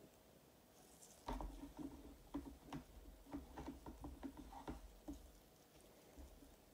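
A run of light taps and clicks from gloved hands handling resin coasters on a plastic-covered table. It starts about a second in and comes about three times a second for roughly four seconds, then stops.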